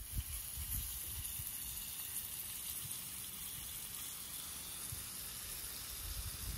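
Salo (pork fat) frying in a pan: a steady sizzling hiss.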